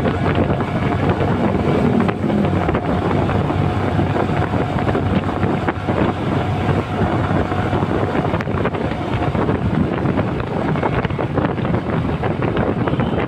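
Motorcycle running at a steady riding speed, its engine note under heavy wind buffeting on the microphone.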